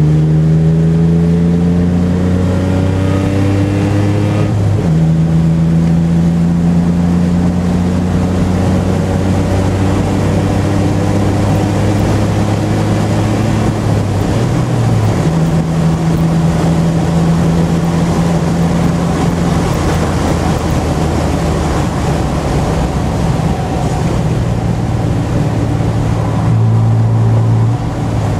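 Nissan 300ZX Z31's V6 engine pulling hard at speed, its pitch climbing slowly between upshifts about five seconds in and again about halfway through. Heavy wind and road noise run under it.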